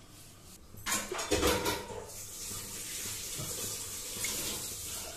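Cooking oil poured into a metal kadai, with a few knocks of cookware about a second in, then a faint steady hiss.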